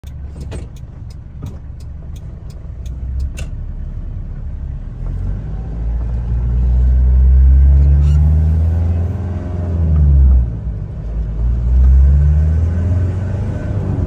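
Diesel engine of a 1997 Toyota ToyoAce truck, heard from inside the cab, idling with a regular ticking of about two clicks a second for the first few seconds, typical of a turn-signal relay. It then pulls away and revs up through the gears, its pitch climbing and dropping back at each gear change, growing louder as the truck picks up speed.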